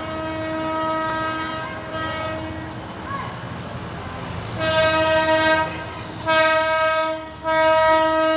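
Diesel locomotive of the narrow-gauge Darjeeling Himalayan Railway sounding its horn. One long steady note stops a few seconds in, then three loud blasts follow, over the low rumble of the engine.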